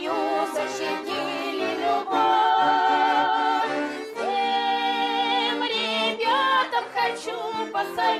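Female vocal duet singing a Russian folk-style song with instrumental accompaniment, holding long wavering notes.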